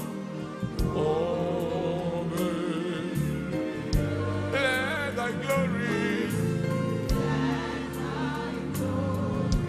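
Live gospel worship song: singers with a choir over a full band, the voices wavering with vibrato around the middle, and drum hits at intervals.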